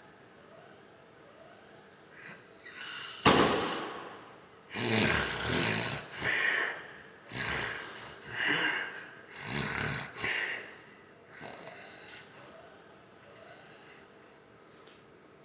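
Loud snoring from a sleeper. It starts with a sudden snort about three seconds in, then runs as a quick series of about six snores roughly a second apart, and fades out near the end.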